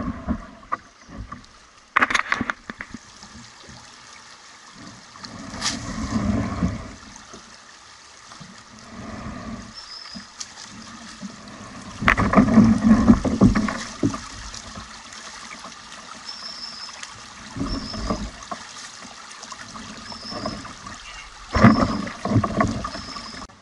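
Paddling on a river: irregular paddle strokes splashing and gurgling in the water every few seconds, with a few sharp knocks of the paddle.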